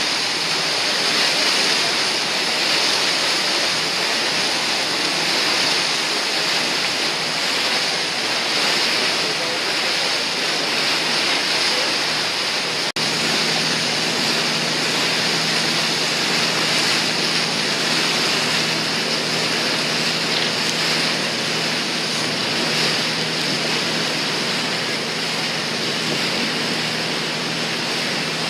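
Steady noise of wind and sea water heard from the deck of a moving cruise boat. Under it runs a low engine hum, which becomes a steadier drone after a brief break in the sound about halfway through.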